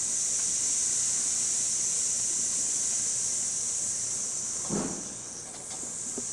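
A loud, steady high-pitched hiss, with a brief dull sound about three-quarters of the way through.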